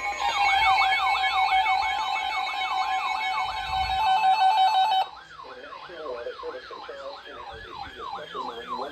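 Electronic siren in a fast yelp, its pitch sweeping up and down about three times a second, over a steady tone. About five seconds in it drops in level and sounds thinner and more muffled, with the yelp carrying on.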